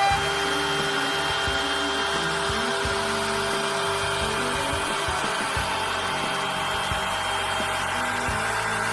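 CNC router spindle running steadily with a high whine while surfacing a glued-up wood board flat.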